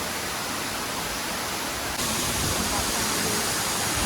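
Rushing water of a waterfall, a steady dense hiss of falling water. It steps up a little louder about two seconds in.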